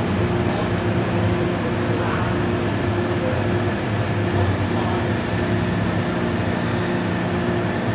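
MTR M-train heard from inside the carriage, running and slowing into a station platform: a steady low hum of motors and running gear, with one thin, steady high whistle held throughout.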